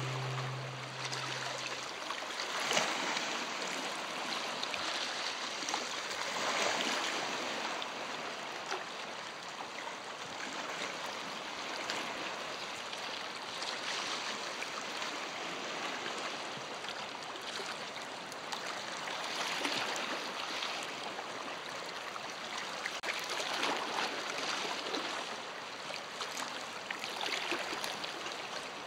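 Shallow lake water lapping and trickling over a rocky shore, a steady wash with small swells every few seconds.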